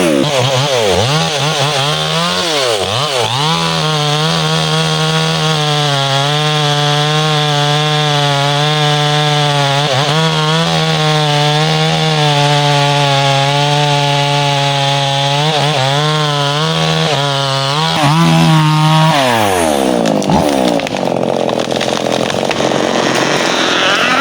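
Two-stroke chainsaw running at high revs, cutting through timber. About twenty seconds in, the steady engine note breaks off into a rougher, noisier sound.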